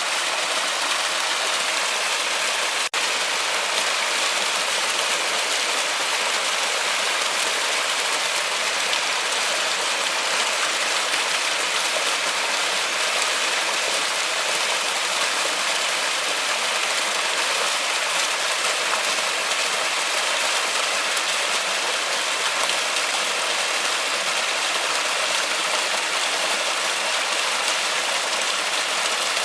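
Steady heavy rain falling on a forest, a dense, even hiss of drops. The sound drops out for an instant about three seconds in.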